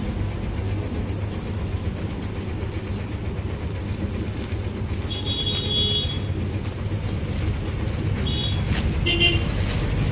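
Steady low rumble of road traffic, with a vehicle horn sounding for about a second around the middle and two short toots near the end. A plastic courier bag rustles faintly and is snipped with scissors.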